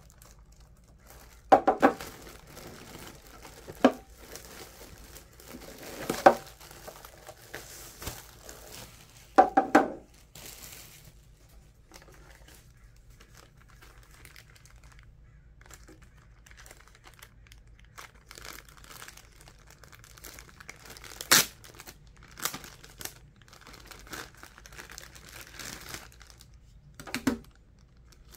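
Thin clear plastic wrapping crinkling and rustling as it is pulled off a plastic storage caddy and an insert card's sleeve is handled, with several sharp knocks scattered through.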